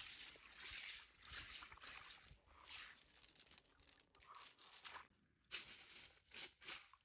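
Pond water sloshing and trickling as a bamboo basket of snails is swished and rinsed in it, in soft irregular surges. Near the end, two short sharp sounds about a second apart, louder than the water.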